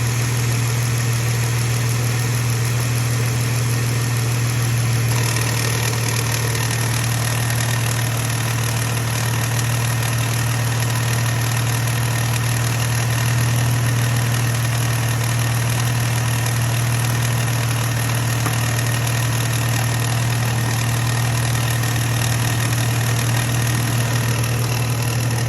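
2015 Jeep Wrangler JK engine running steadily at idle with a strong low hum. About five seconds in, a brighter hissing noise with a faint high whine comes in over it and stays: the intermittent engine-bay noise whose cause is unknown.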